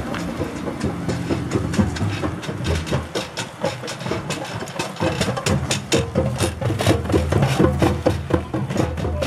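A vehicle engine running at low speed as an SUV tows a trailer float slowly past. From about halfway on there is a rapid clatter of knocks and clicks.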